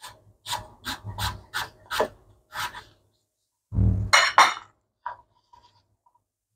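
Chef's knife chopping apple on a wooden cutting board: about seven quick chops over the first three seconds, then a louder thump and two sharp knocks about four seconds in.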